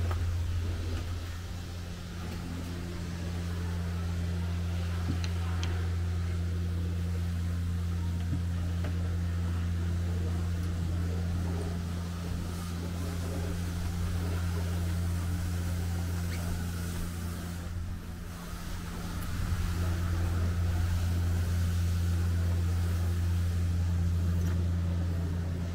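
Steady low machine hum with a constant pitch, dipping briefly twice.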